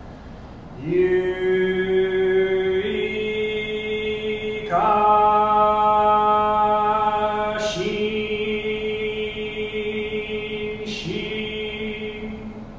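A man chanting Buddhist liturgy solo in long, drawn-out syllables, each held on a steady pitch. The chant starts about a second in, and there are a couple of short hissed consonants between the held vowels.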